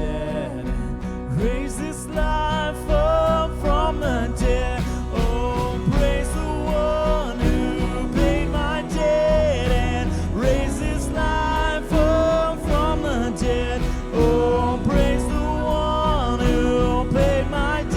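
Live church worship band playing a song, with a singer and a steady drum beat under a full bass.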